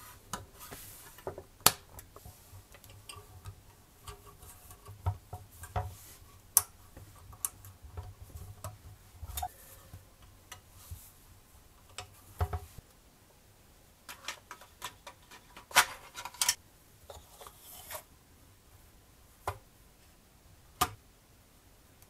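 Plastic and metal parts of a scale-model Range Rover Sport body being handled and pressed together: scattered small clicks and taps with short bits of rubbing, a few of the clicks sharp and loud.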